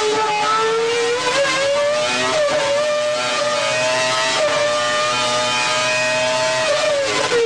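Renault Formula 1 racing engine running at high revs on a test bench, its pitch wavering up and down and rising a little early on, then dropping near the end.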